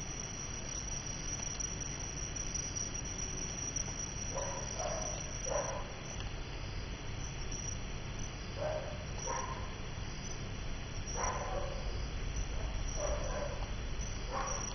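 Steady high insect chirring, with short pitched animal calls coming in small groups every few seconds in the second half.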